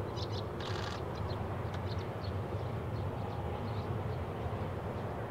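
Embraer E190-E2 airliner's Pratt & Whitney PW1900G geared turbofan engines as a steady low rumble as it flares to land. Small birds chirp over it in short high calls, mostly in the first second or so.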